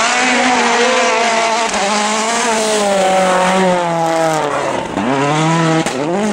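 World Rally Car engine revving hard through a snowy corner, its pitch swinging up and down with the throttle. About five seconds in, the pitch drops sharply and then climbs again as it accelerates away.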